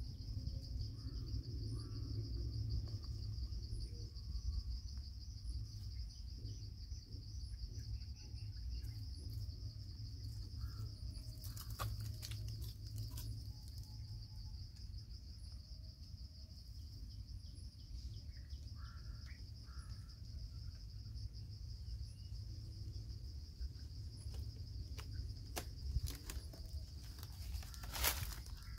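Insects trilling in a steady, high, unbroken drone, over a constant low rumble. A few sharp cracks sound about twelve seconds in and again near the end, with faint bird chirps here and there.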